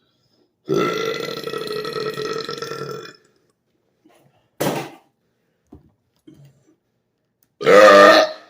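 Loud burps brought up by gulping fizzy drink. There is one long, drawn-out burp of about two and a half seconds, a short one a second and a half later, and a louder short burp near the end.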